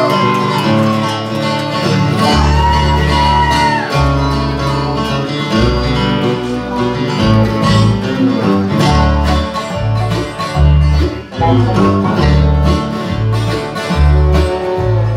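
Bluegrass band playing a song's instrumental intro: strummed acoustic guitar and fiddle, with upright bass coming in about two seconds in and keeping a steady beat.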